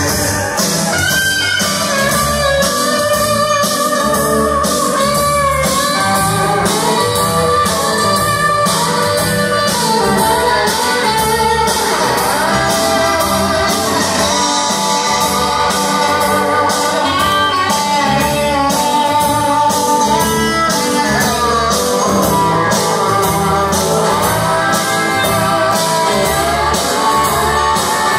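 Live rock band playing an instrumental stretch with electric guitars over a steady drum beat, a guitar line bending notes up and down about halfway through.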